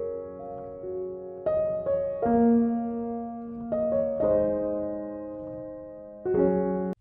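Soft piano background music: slow, sustained chords with new notes struck every second or so, cutting off suddenly at the very end.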